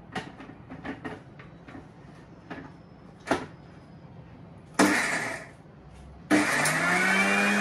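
Steel jar and lid of an Indian mixer grinder clicking and knocking as they are fitted, then the mixer's motor pulsed twice: a short burst about five seconds in, and a longer run near the end that spins up to a steady whine. It is dry-grinding grated raw guava with green chillies and tamarind for chutney.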